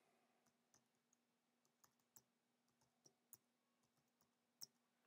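Faint keystrokes on a computer keyboard as a web address is typed: about a dozen irregular clicks, the loudest one about four and a half seconds in, over a faint steady hum.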